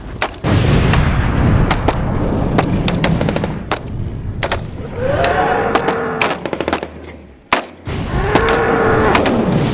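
Rapid gunfire, many shots in quick irregular succession over a dense rumble, likely battle sound effects for a toy-gun fight. A wavering pitched tone rises and falls twice, about five and eight seconds in.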